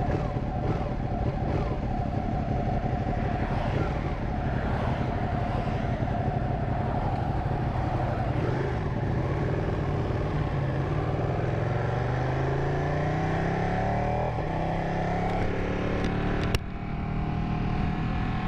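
Ducati 959 Panigale's Superquadro L-twin engine idling, then rising in pitch as the bike pulls away, with a brief sharp click a couple of seconds before the end.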